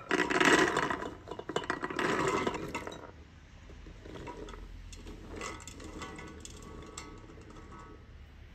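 Wet chickpeas swept by hand from a glass bowl into a stainless-steel pressure-cooker pot, clattering loudly in two pours over the first three seconds. Then quieter rustling and clinking as the hand spreads them in the pot and the bowl knocks the rim.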